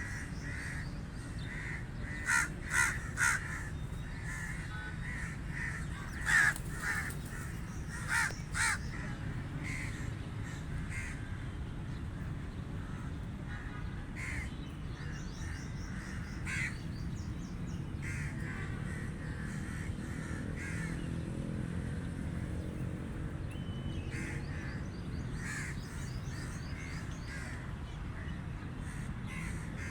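Crows cawing: three loud caws in quick succession about two seconds in, more loud caws around six and eight seconds, then fainter, more distant caws scattered through the rest. A steady low rumble runs underneath.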